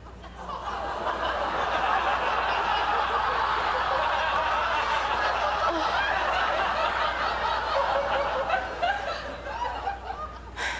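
Studio audience laughing. The laughter swells up about half a second in, holds for several seconds and dies down near the end.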